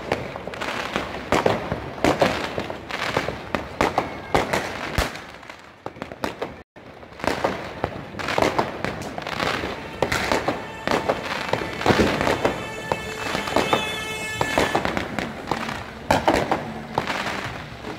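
New Year's Eve fireworks and firecrackers going off all around: a dense run of sharp bangs and crackling bursts, with a short break about seven seconds in. A steady pitched tone comes in during the last few seconds.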